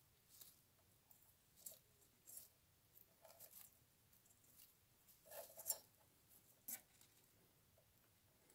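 Faint scattered scratching and rustling in straw bedding as turkey poults shift and step about in a cardboard box, with the loudest cluster of scratches a little past halfway.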